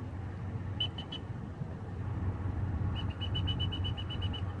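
Short, high whistle pips at one steady pitch, calling a puppy: three quick pips about a second in, then a fast run of about a dozen, some eight a second, over a steady low rumble.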